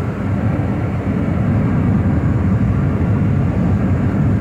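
Steady low rumble of a car driving on a rain-soaked highway, heard inside the cabin: tyre and road noise on the wet asphalt.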